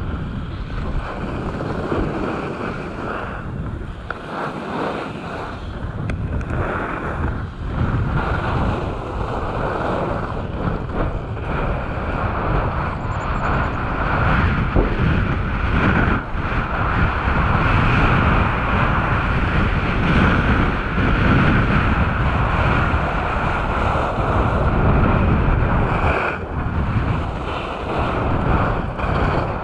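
Wind rushing over an action camera's microphone as a skier runs downhill, mixed with the hiss and scrape of skis on packed snow. It is steady throughout and grows a little louder about halfway through.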